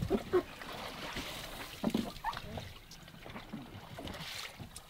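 Quiet water sloshing and lapping, with a few short knocks and faint voice fragments scattered through it.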